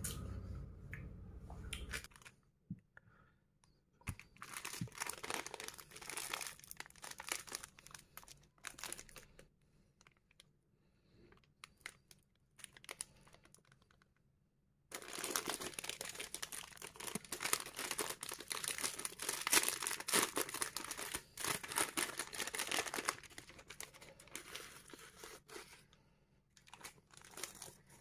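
Plastic ice-lolly wrapper crinkling and tearing as it is handled and opened by hand, in two bouts of crackling, the longer and louder one about halfway through.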